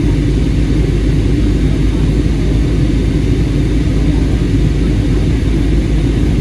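Passenger aircraft cabin in flight: a loud, steady, deep drone of engines and rushing air.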